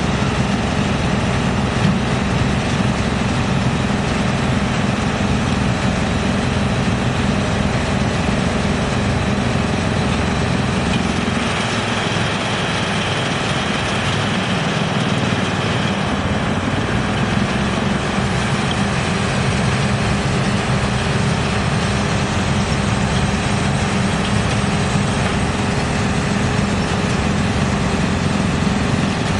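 Drum wood chipper running steadily, a dense mechanical din with a low engine hum. For a few seconds around the middle the low hum thins and a higher hiss comes up, then the steady running returns.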